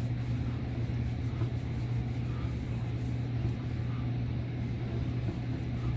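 A steady low hum, with faint soft rubbing as an alcohol wipe is scrubbed over the shell of a motorcycle helmet.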